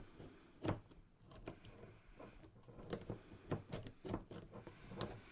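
Handling noise from a gimbal collar clamp being worked by hand: scattered small clicks and knocks of the mount's parts, the loudest a sharp knock under a second in, with a cluster of lighter ticks a few seconds later.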